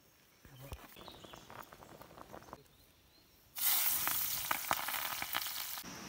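Faint clicks and rustles of dry sticks being handled at a small cylindrical metal wood-burning camp stove. About three and a half seconds in, a wood fire burning in the stove takes over, a loud hiss full of crackles and pops.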